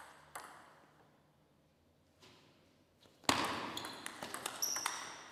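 Table tennis ball ticking off the table and rubber bats: a couple of light taps as the server gets ready, then from about three seconds in a fast rally of sharp, echoing hits.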